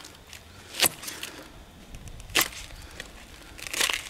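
Knife slicing through an onion: a few sharp, crisp cuts about a second or more apart, then a quick run of cuts near the end.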